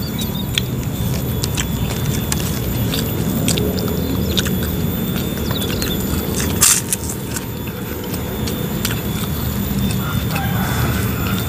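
People chewing and smacking their lips while eating with their hands, with scattered small mouth clicks and one sharper click about two-thirds of the way through, over a steady low rumble.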